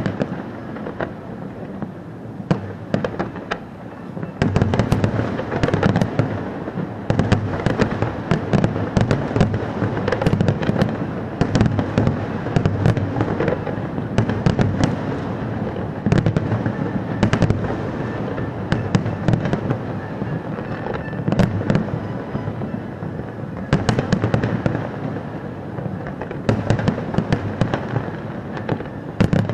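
Fireworks display: a continuous barrage of rapid bangs and pops, growing heavier about four seconds in.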